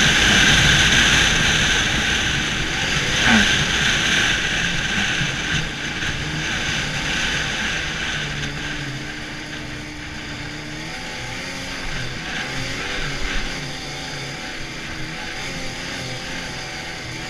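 Arctic Cat snowmobile running along the trail: a steady engine drone under a strong high hiss. The sound is loudest at first and grows quieter after about five seconds, with the engine note rising and falling in the second half.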